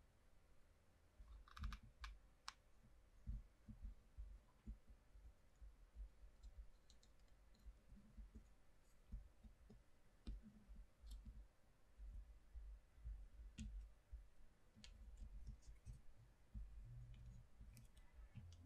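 Faint, scattered clicks and soft low knocks of small wooden popsicle-stick shingles being picked up and pressed into place on a wooden stick panel on a table.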